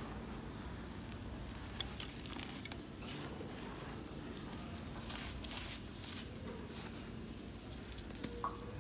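Dry red dirt and small clods rustling and crumbling through a hand in a few soft bursts, with small sharp clicks of grit and pebbles, over a steady low background noise.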